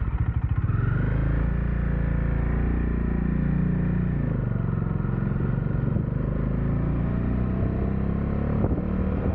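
Bajaj Dominar motorcycle's single-cylinder engine pulling away from a stop. Its pitch rises over the first few seconds and drops back about four seconds in, and it then runs steadily at low road speed.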